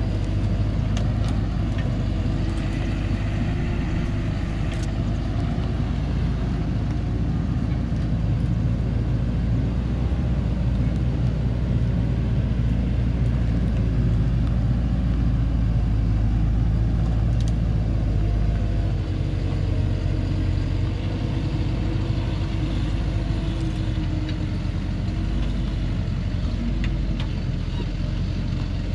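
Loaded logging truck's engine running steadily at low speed under a heavy load of acacia logs on a rough dirt track, a continuous deep drone that eases slightly about two-thirds of the way through.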